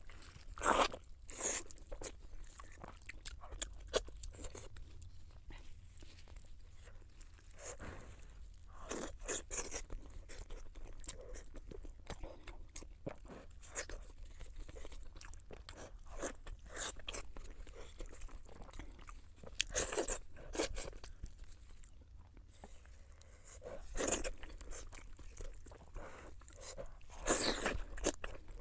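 A person chewing and crunching food close to the microphone in mukbang style: irregular small clicks, with louder clusters of bites and chews every few seconds.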